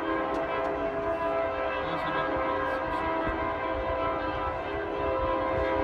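A train's air horn held in one long, steady chord of several tones.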